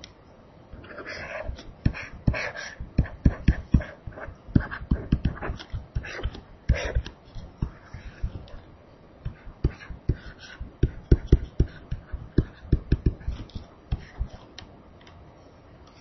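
A stylus drawing on a tablet: a run of irregular sharp taps and clicks with a few short scratchy strokes, pausing briefly twice.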